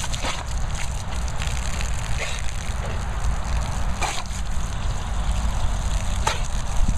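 An American Bulldog snapping and biting at a jet of water from a garden hose: a steady spray hiss broken by sharp splashy snaps every second or two, over a steady low rumble.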